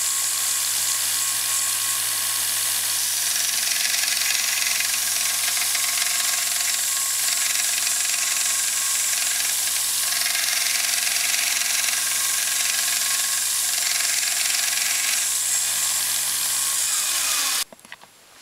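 Small bench belt sander running, with a steady motor hum under a loud grinding hiss as a steel hand scraper is held against the abrasive belt to sharpen its edge. The sound cuts off suddenly near the end.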